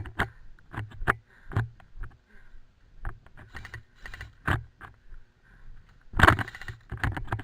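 A run of irregular knocks, clicks and rattles, a few each second, with a louder, denser clatter about six seconds in.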